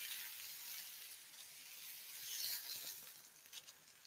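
Chicken kebabs sizzling faintly on a hot griddle pan. The sizzle swells briefly about halfway through, then fades, with a few light clicks near the end.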